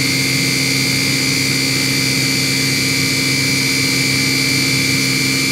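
CNC machining centre milling a pocket in hardened C45 steel (42 HRC) with a 12 mm end mill. The spindle and cut make a steady, even whine with two high tones over a low hum.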